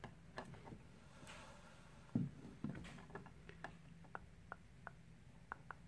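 Faint handling sounds of a small vinyl figure being set down on a box top: a few soft knocks, one heavier a little over two seconds in, then a run of small light ticks in the second half.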